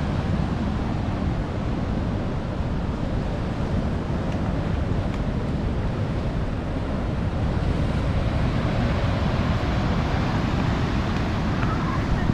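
Ocean waves and surf washing steadily, with wind noise on the microphone.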